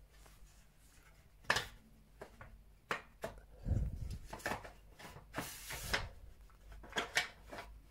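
Black corner connectors being pushed and slid into the ends of an aluminium projector-screen frame's rails by hand: scattered light clicks and knocks, a dull thump about four seconds in, and a brief scrape a little after five seconds.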